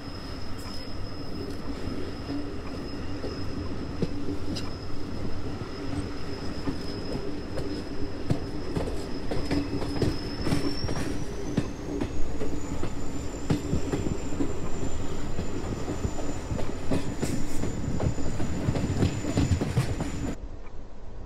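A moving train running steadily: a continuous rumble with rail clicks and a thin high whine that rises in pitch a little past the middle. Near the end the high hiss drops away abruptly.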